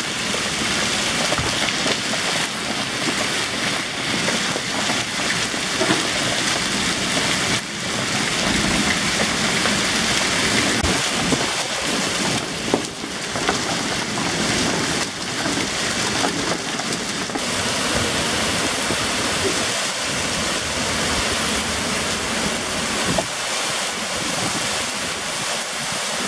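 Heavy rain pouring onto a paved street and sidewalk in a downpour, a steady, dense hiss.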